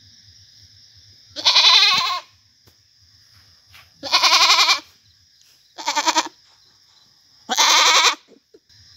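A goat doe in labour bleating loudly four times, each bleat under a second long, the third one shaky and broken.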